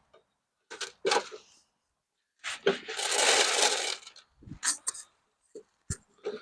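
Sharp knocks and clatter, with a dense rattling rush lasting about a second and a half in the middle, then a few more knocks.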